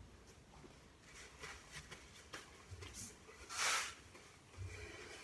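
Faint scattered clicks and light knocks, with a short swish about three and a half seconds in.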